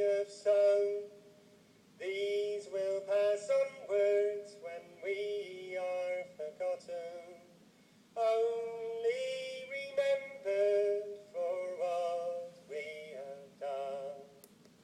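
Programmed sound chip built into a customised model horse, playing its music-box tune. The melody comes in three phrases with short pauses between them and stops a little before the end.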